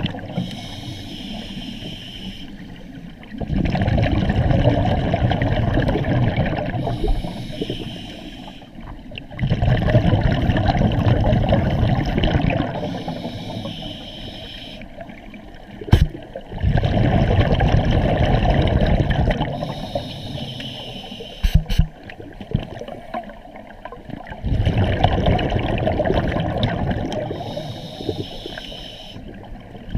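Scuba regulator breathing underwater: a loud bubbling rush of exhaled air four times, each lasting about three seconds, with quieter hissing inhalations between. A couple of sharp knocks come about halfway through.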